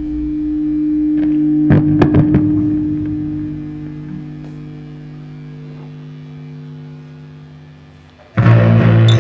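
A sustained electric guitar note rings and slowly fades, with a few sharp strikes about two seconds in. Near the end a full rock band comes in suddenly and loudly.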